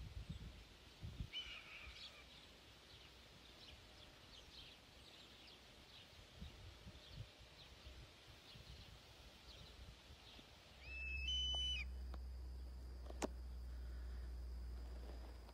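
Faint wild birds chirping over low rumbling noise, with a short call about a second in. Near the end a low hum with a brief stepped set of tones comes in, followed by a single sharp click.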